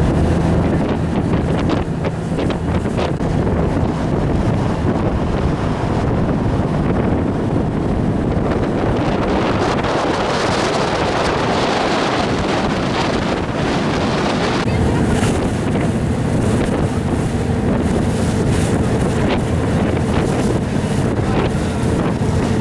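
A boat's engine running under way, with wind buffeting the microphone and the rush of water; the rush swells for a few seconds near the middle.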